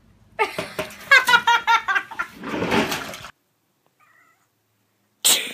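A wet cat in a bath yowling: a run of drawn-out, wavering complaining meows, then a rougher, noisier sound that stops abruptly. Near the end a sudden loud noise breaks in.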